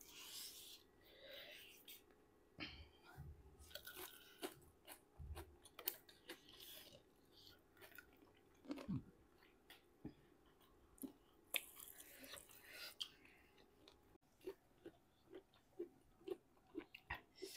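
Quiet close-up eating sounds: mouth chewing and crunching, with scattered wet clicks and a denser crunchy burst past the middle. Near the end the chewing settles into a run of quick, regular clicks, about two or three a second.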